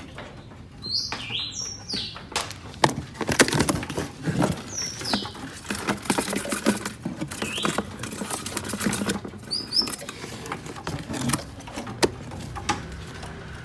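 A wild-caught white-rumped shama flapping and fluttering in its cage, with clicks and rattles and a few short high chirps.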